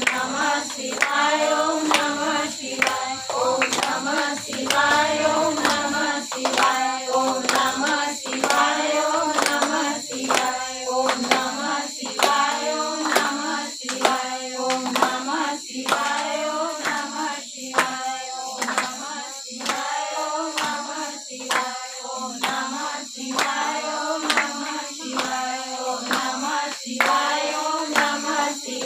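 Group of women singing a devotional song together, keeping time with steady rhythmic hand-clapping.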